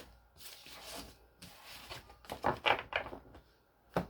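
Tarot cards being handled: a soft rustle of shuffling, then a quick run of sharp taps and knocks about two seconds in, and another tap near the end.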